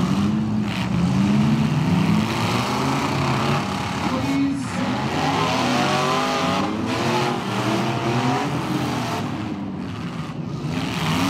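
Several demolition-derby pickup trucks' engines revving hard together, their pitch rising and falling as they accelerate and back off.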